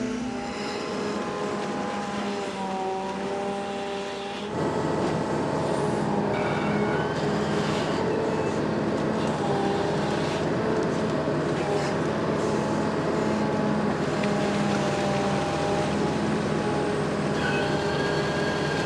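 Amphibious excavator's engine running steadily, with several whining tones that waver slightly in pitch; it gets louder about four and a half seconds in.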